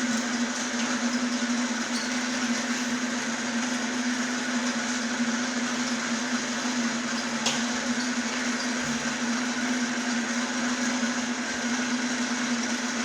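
Machinery running with a steady electric-motor hum and an even whirring hiss, unchanging throughout, with one faint click about seven and a half seconds in.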